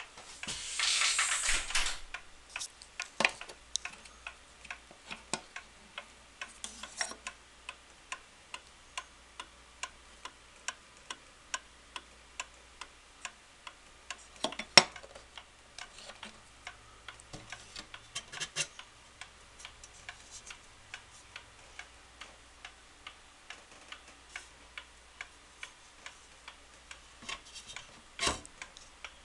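Antique Seth Thomas 8-day short drop regulator wall clock ticking in an even, steady beat as its pendulum swings. A burst of rustling comes near the start, and there is one sharp knock about halfway.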